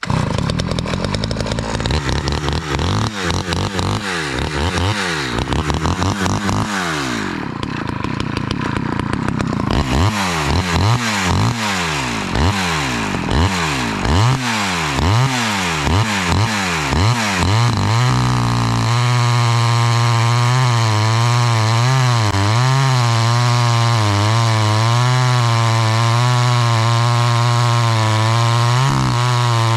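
Small Stihl two-stroke chainsaw revved up and down again and again for the first half. From a little past halfway it runs at steady high revs, its pitch wavering slightly as it saws through ash wood.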